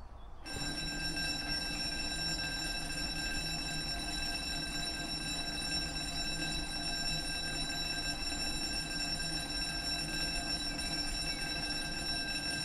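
UK level crossing warning alarm sounding steadily: a constant electronic tone that starts about half a second in and holds without a break, warning that a train is approaching and the barriers are about to come down.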